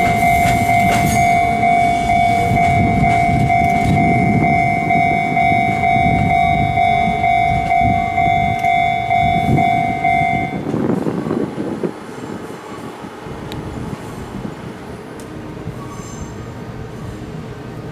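A Fujikyu Line electric train passing with wheel rumble and clicks, under a steady, high two-pitch warning tone. The tone cuts off suddenly about ten seconds in, and the train sound then dies down.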